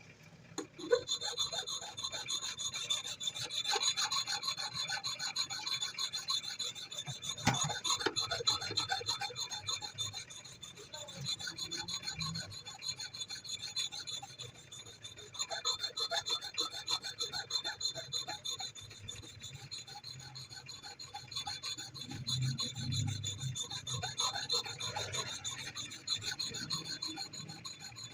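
Steel hatchet blade being filed by hand: a continuous run of quick rasping strokes of a metal file on steel.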